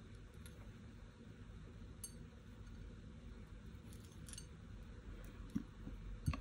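Faint, scattered clinks of small glass beads against a porcelain bowl as the tip of the beading cord scoops them up, over a low steady hum. Two soft knocks near the end.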